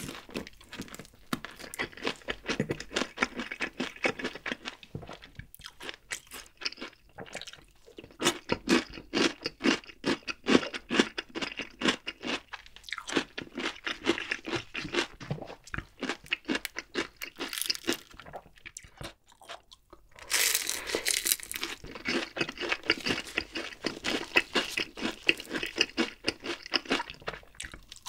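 Crunching and chewing of honey-glazed Kyochon Honey Combo fried chicken, its crisp coating crackling with each bite. There is a short lull about two-thirds of the way through, then a dense burst of crunching from a fresh bite.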